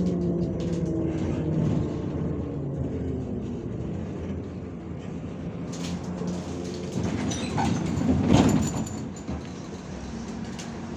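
MAZ-105 articulated city bus heard from inside the cabin, slowing down. A falling whine from the engine and drivetrain fades over the first couple of seconds and leaves a steady rumble. About eight seconds in comes a louder burst of hissing and clatter.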